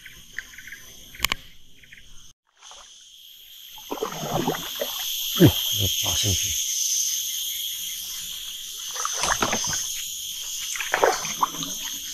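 A steady chorus of night insects, crickets, chirring high over the swamp. From about four seconds in comes irregular splashing and sloshing of water, several times. The sound cuts out briefly about two seconds in.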